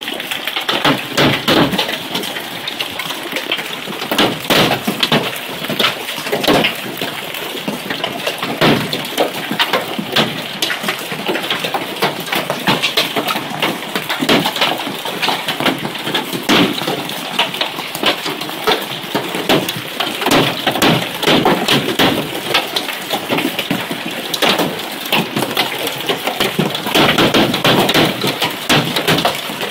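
Heavy hail falling: a dense, continuous clatter of hailstones striking, with many louder sharp hits standing out from the steady patter.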